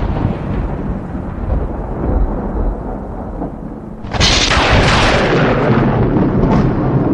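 Thunder: a low rumble dying away, then a sudden sharp crack about four seconds in, followed by a loud rolling rumble.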